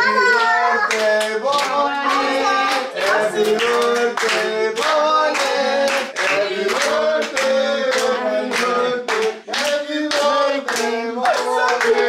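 A small group clapping hands in a steady beat, about three claps a second, while singing together to celebrate a birthday cake being brought in.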